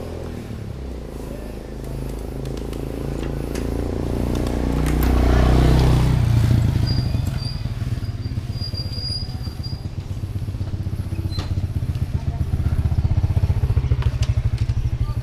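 Wind rumbling on the microphone while riding a bicycle over asphalt, with tyre noise and a few small clicks and rattles. The rumble swells for a moment about five seconds in.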